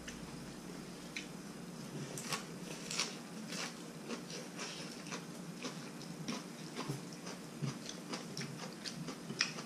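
Eating noises of noodle soup being eaten with chopsticks: an irregular run of small clicks and smacks from chewing and slurping, with a few sharper ones around three seconds in and near the end.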